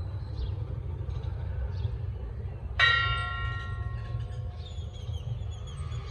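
A church bell struck once about three seconds in, ringing on and fading over a few seconds, over a steady low rumble.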